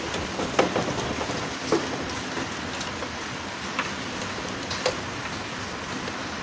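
Steady background hiss with a few small, sharp clicks and taps as a screwdriver and spade-terminal wires are worked at an air conditioner's terminal block.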